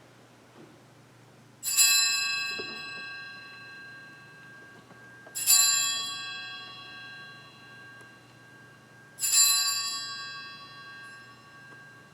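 Altar bell struck three times, about four seconds apart, each strike ringing out and fading: the consecration bell rung at the elevation of the host during Mass.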